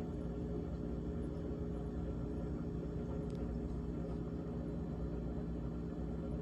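GE refrigerator running with a steady hum of several held tones over a low rumble, with a faint click about three seconds in.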